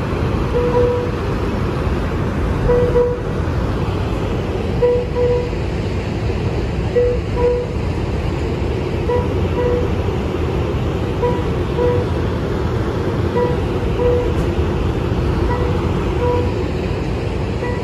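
Steady low rumble of an Amtrak California bilevel passenger train standing in the station with its doors open, with a short pitched beep repeating every second or two.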